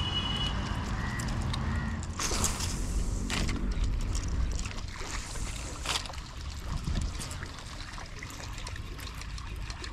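Water sloshing and lapping around a small wooden boat under a steady low rumble, with a few short splashy bursts, the longest about two seconds in.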